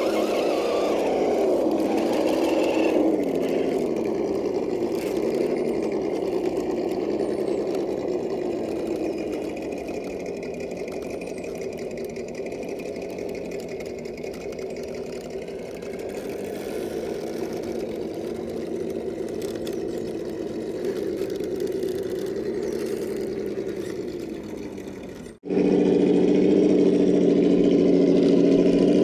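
Traxxas TRX-4 RC crawler's electric motor and gearbox whining as it crawls over rock, the pitch wavering up and down with the throttle. About 25 seconds in, the sound cuts to a louder, steadier whine.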